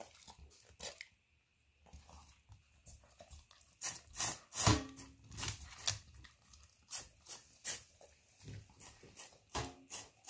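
Rough collie eating tuna and rice from a stainless-steel bowl: irregular wet smacking, licking and chewing clicks. The metal bowl knocks and rings briefly about four and a half seconds in, and again near the end.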